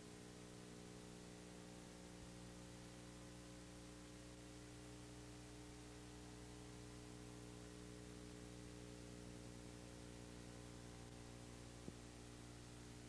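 Near silence: a steady low electrical hum with hiss, and one faint click near the end.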